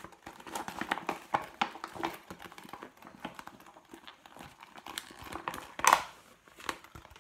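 Clear mesh-lined plastic zipper file bag crinkling and crackling as hands push it out and stretch it, with a louder crackle about six seconds in as it is pulled taut.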